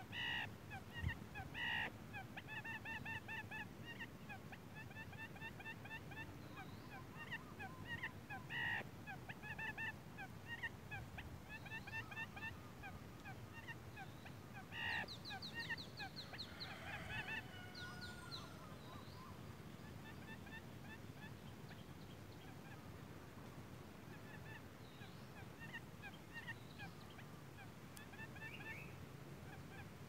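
White-breasted waterhen calling: rapid series of pitched notes in repeated bursts, with louder notes now and then, thinning out to sparse faint chirps after about 18 seconds.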